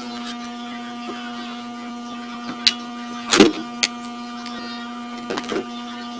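Scattered clicks and knocks of laptop parts being handled and worked on, over a steady low hum. The loudest knock comes about three and a half seconds in.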